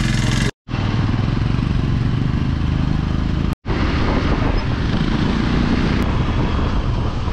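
Motorcycle engine running as the bike pulls away and gathers speed, with heavy wind noise on the rider's camera microphone. The sound cuts out to silence twice for a moment.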